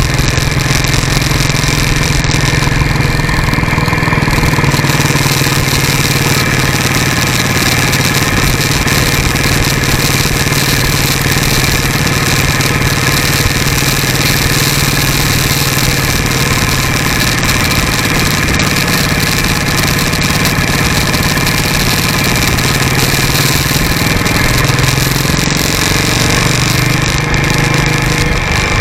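Motorcycle engine running steadily at cruising speed while riding, heard through heavy wind and road noise on a camera mounted down by the front wheel.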